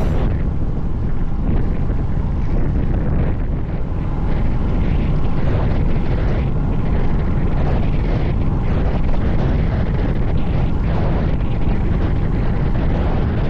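Wind buffeting the microphone of a camera on a moving road bike: a loud, steady rumble that changes little throughout.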